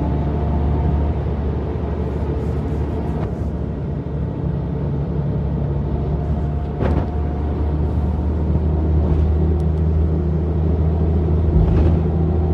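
Mercedes-Benz O405NÜ city bus engine idling steadily, with a couple of short knocks.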